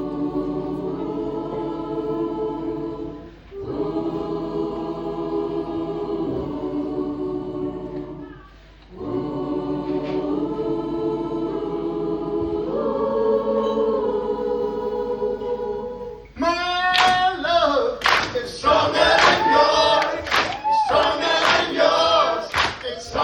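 Mixed choir singing held chords in phrases with short breaks. About 16 seconds in it swells louder, with a moving melody line over the chords and sharp percussive beats.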